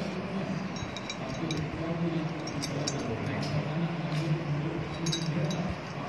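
Light metallic clinks and taps of small steel refrigerator-compressor parts being handled, a few scattered through, over a steady low hum.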